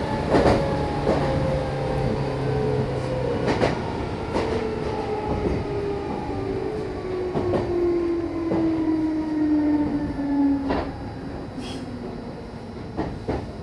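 Meitetsu electric train heard from inside the car as it slows: a motor whine falls steadily in pitch while the wheels click over rail joints. The whine dies away about eleven seconds in as the train brakes toward a station stop.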